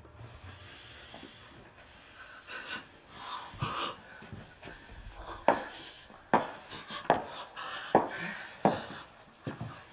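A woman sobbing and gasping for breath in distress. The gasps come about once a second from about halfway through.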